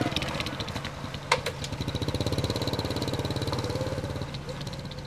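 Honda Wave motorcycle's small single-cylinder four-stroke engine running steadily as the bike pulls away, fading as it moves off. One sharp click about a second and a half in.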